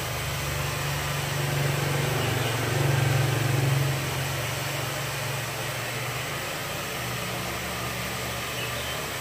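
Steady low mechanical hum with a hiss over it, a little louder about two to four seconds in.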